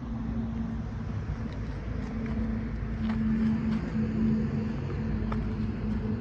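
A steady low engine-like hum over a low rumble, with a few faint clicks of footsteps and twigs as people walk through dry scrub.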